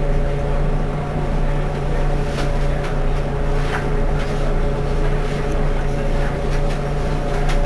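Mercedes-Benz Citaro G C2 articulated bus standing with its engine idling: a steady, even hum.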